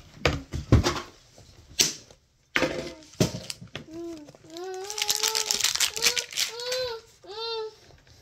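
A young child babbling and whining in high, sliding pitches through the second half, with no clear words. Before it come a few sharp clicks and knocks in the first two seconds.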